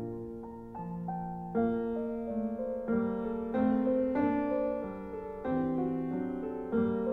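Background piano music: sustained chords and notes that change about once a second.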